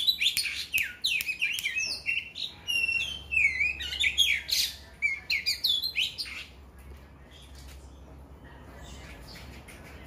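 Caged oriental magpie-robin (kacer) singing a rapid, varied song of whistles, chirps and sweeping notes. The song thins out to a few scattered calls about six and a half seconds in.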